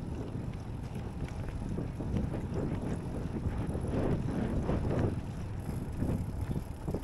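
Wind buffeting the microphone while a mountain bike is being ridden, a rough, fluctuating rush that is heaviest in the low end.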